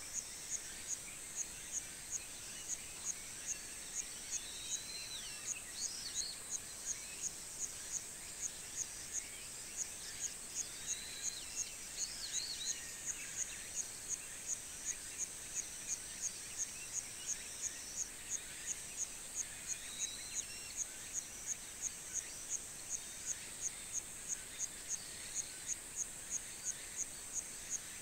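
Summer countryside ambience: a steady high insect drone with a regular insect chirp about twice a second, and scattered short bird calls.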